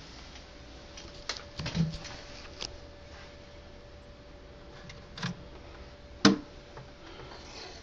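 Scattered light clicks and knocks from hands handling a terrarium's mesh screen lid and light fixture, the loudest a sharp knock about six seconds in, over a faint steady hum.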